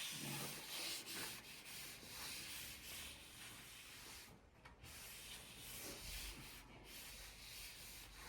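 Faint rubbing on a surface, in slow, uneven strokes.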